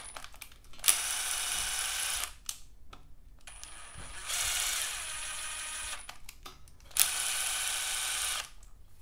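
Cordless impact driver on its lowest speed, spinning an M8 x 1.25 thread chaser in an engine block bolt hole to clean out dirt and old Loctite. The motor whirs in three steady runs of about a second and a half each, and the first and last runs start with a sharp click.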